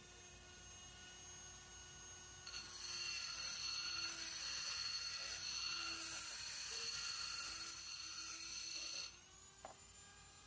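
Dremel rotary tool running with a thin whine, then grinding out the inside wall of a steel tube: a loud, high-pitched grinding starts about two and a half seconds in and lasts about six seconds. The grinding stops abruptly, leaving the motor's quieter whine and a small click.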